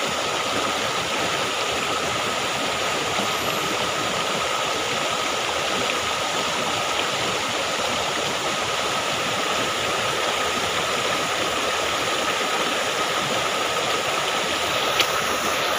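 Shallow stream rushing steadily over rocks and a low weir. A faint steady tone sits over it, and there is one small click near the end.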